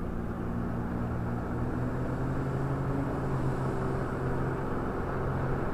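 Car engine running steadily with a low, even hum, heard from inside the cabin while the vehicle makes a U-turn.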